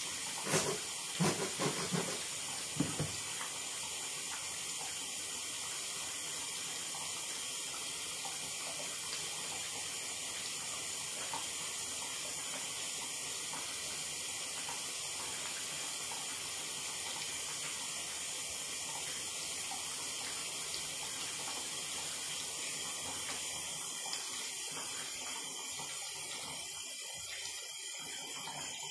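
Steady hiss of water running from a tap into a bathtub, with a few sharp knocks in the first three seconds.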